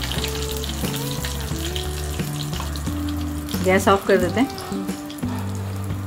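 Hot oil sizzling and crackling in a small tadka pan as mustard seeds, urad dal and asafoetida fry for a tempering, over background music. About two-thirds through, a short louder melodic phrase rises in the music.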